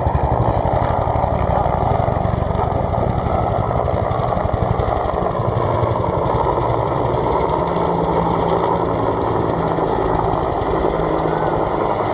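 Two Bell UH-1 Huey helicopters flying past in formation, the beat of their two-bladed main rotors a fast, steady chop. The chop is sharpest in the first few seconds and evens out into a smoother drone later.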